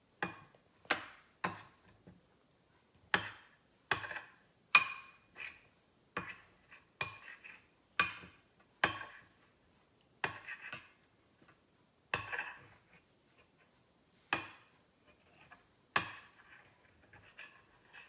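Metal spoon stirring sauce in a small glass bowl, clinking against the glass in uneven strikes about once a second, each with a brief ring.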